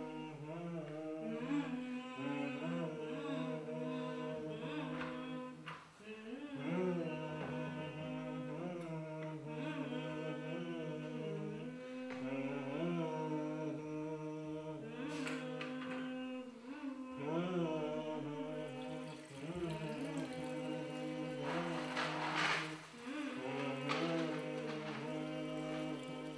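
Slow wordless vocal melody: a voice humming long held notes that step up and down, played as music under the scene.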